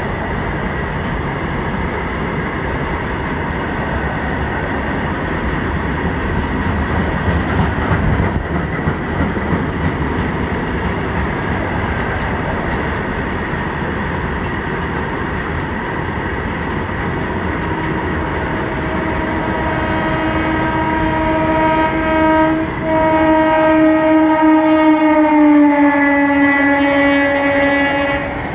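Steady rumble of a train running on the tracks, then about two-thirds of the way through an EMU local train sounds its horn: one long blast, a brief break, then a second, louder long blast that drops in pitch as the train comes by.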